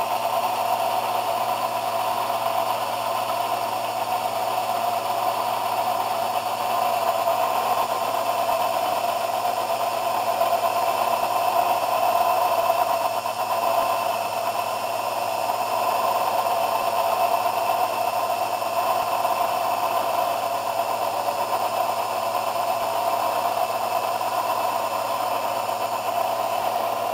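Small Unimat 3 hobby lathe running steadily, its motor and drive giving a constant whine and hum while turning down a cast-iron bar.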